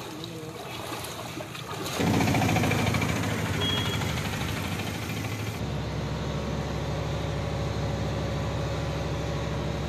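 Floodwater trickling, then about two seconds in an auto-rickshaw's engine starts to be heard as it drives through the water; a little past halfway the sound cuts to a steadier, lower engine hum.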